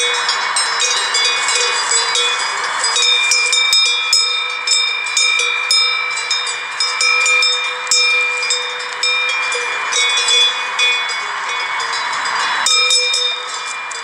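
Many sheep bells clinking and ringing together as a flock mills about, their tones overlapping continuously with sharp metallic clinks throughout.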